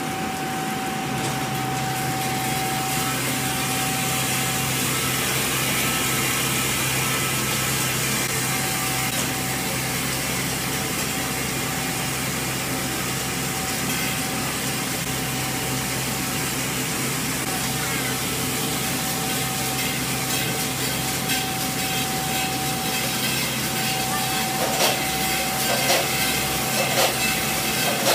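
Automatic spiral coil spring weighing and packaging machine running: loose metal springs rattling and rasping in its vibrating feed tray, over a steady machine hum and a thin steady tone. A few sharp clicks come near the end.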